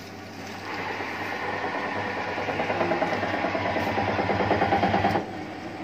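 Semi-automatic paper cutting machine running: a steady motor hum, with a fast, evenly pulsing mechanical sound that builds for about four seconds and stops abruptly near the end.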